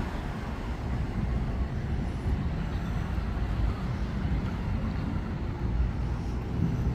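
Steady low rumble of street traffic, with a faint hum coming in near the end.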